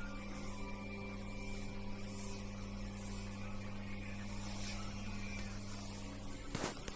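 A steady low hum, with a sharp click near the end.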